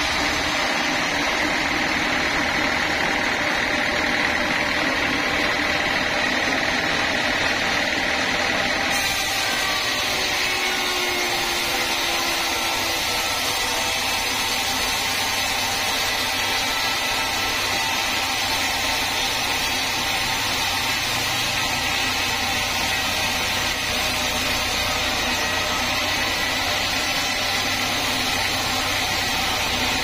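Band sawmill running, its blade cutting through a dry mahogany log: a steady mechanical noise that grows brighter and hissier about nine seconds in.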